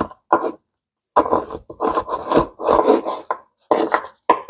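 A long slicing knife sawing through a rack of baby back ribs in about half a dozen strokes, the blade scraping and knocking on a wooden cutting board.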